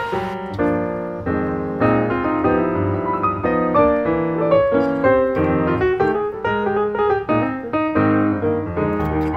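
Background instrumental music with piano, a continuous melody over chords.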